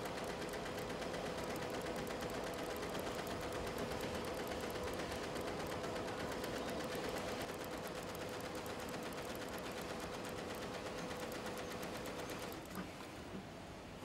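Tajima multi-head embroidery machine stitching at speed: a rapid, even needle clatter over a steady hum, which falls quieter about twelve and a half seconds in, leaving a couple of single clicks.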